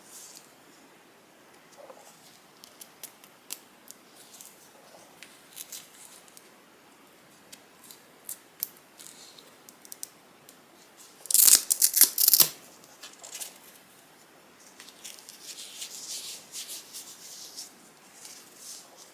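Packaging being handled close to the microphone: small scattered clicks and taps, then about eleven seconds in a loud, rapid crackling burst lasting about a second, like scissors snipping or material tearing, followed by a stretch of softer rustling.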